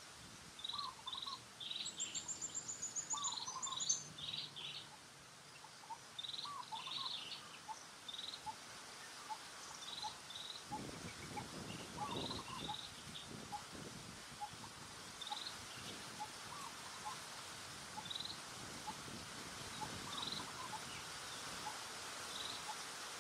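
Birds chirping repeatedly in short calls over a steady background hiss, with a fast high-pitched trill a couple of seconds in. A brief low rustling noise comes about halfway through.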